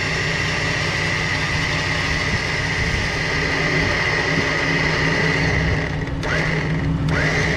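OPENROAD Panther Series 2S 13,000 lb electric winch winding in its slack synthetic line, a steady high-pitched motor whine over a low hum. The whine winds down about six seconds in and starts up again with a rising pitch a second later as the last of the line is jogged in.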